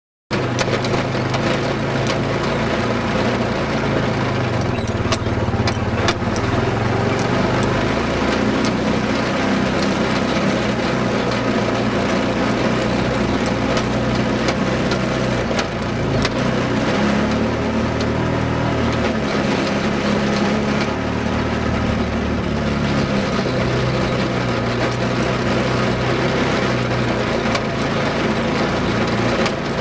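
ATV engine running while riding, its pitch rising and falling as the throttle changes, with a few sharp knocks about five and six seconds in.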